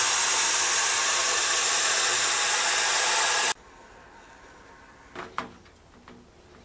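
Comgrow Z1 Pro 20 W diode laser cutting plywood: a loud, steady airy rush that cuts off abruptly about three and a half seconds in. Then faint knocks of plywood pieces being fitted together by hand.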